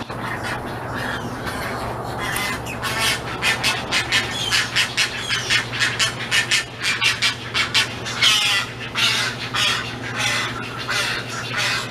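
Birds squawking in a rapid string of short, harsh calls, over a steady low hum.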